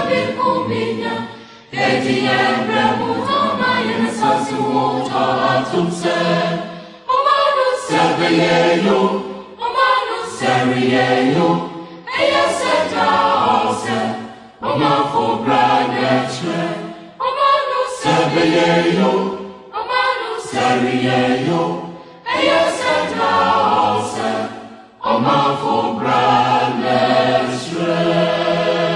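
Background music of a choir singing, in short phrases broken by brief pauses every two to three seconds.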